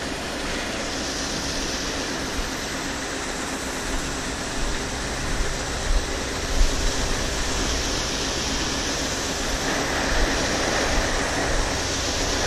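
Steady rushing and rumbling from grain-handling equipment as corn pours from a spout into a semi's grain trailer, with a few brief knocks.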